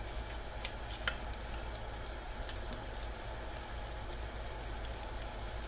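Apple fritter batter deep-frying in hot oil in a stainless pan: a steady sizzle with a few small pops.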